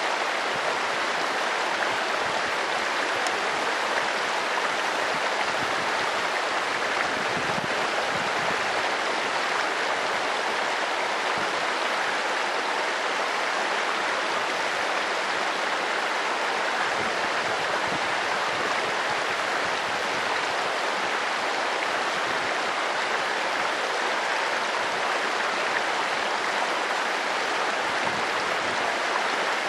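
Shallow mountain stream running over stones and pebbles: a steady, even rushing of water.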